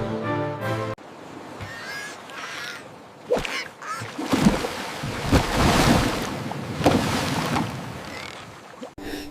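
A duck quacking harshly several times over a rushing, watery noise. Music plays for about the first second.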